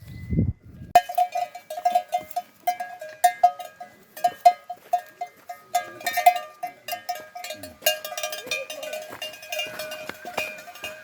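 A metal bell clanking over and over in a quick, uneven rhythm, each strike ringing briefly. It starts about a second in, after a short low rumble, and a thin wavering tone joins near the end.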